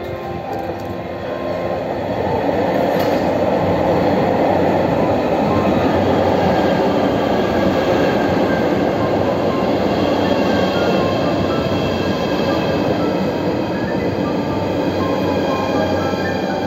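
JR Shikoku 8600 series electric train pulling into the platform: its wheels rumble on the rails, with several steady high-pitched whines over the rumble. The rumble grows louder over the first two seconds, then holds steady.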